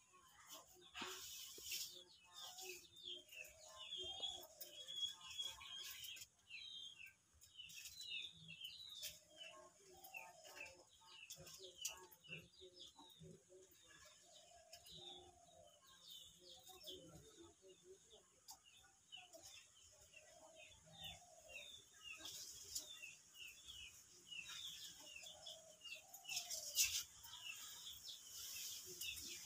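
Many small birds chirping and twittering in the background, with a few short, sharp scrapes and clicks from scaling and washing small fish, the loudest near the end.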